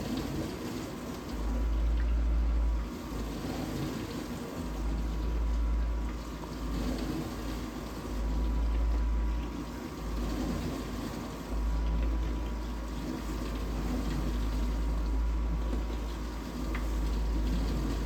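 Vintage dishwasher running its wash cycle: the pump motor hums steadily while water sprays and sloshes inside the tub, with a low rumble that swells and eases every couple of seconds. The uploader suspects the pump is restricted, as the water no longer hits the tub at full force.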